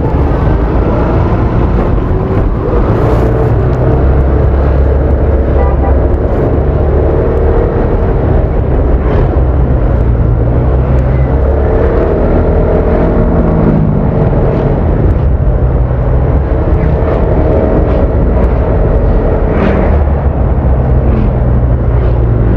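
Honda Vario 160 single-cylinder scooter engine running while riding in traffic, recorded onboard. The engine note rises and falls a few times over a steady low rumble.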